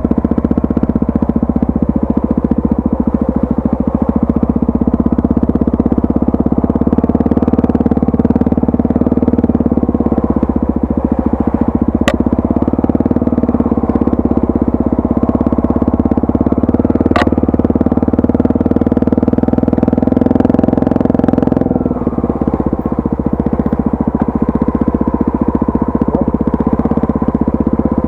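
Honda Tornado 250's single-cylinder four-stroke engine running steadily while riding. Two sharp knocks come about twelve and seventeen seconds in, and the engine note drops a little about twenty-two seconds in.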